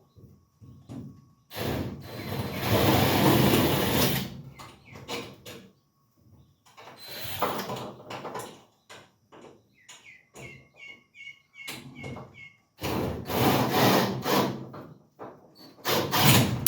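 Handling noise from tools and hardware being moved about: several bursts of clattering and scraping, a few seconds each. A bird chirps repeatedly in a quieter stretch in the middle.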